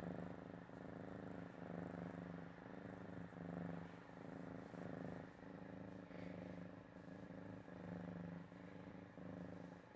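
A cat snoring in its sleep: a low, rhythmic rasp that rises and falls with each breath in and out.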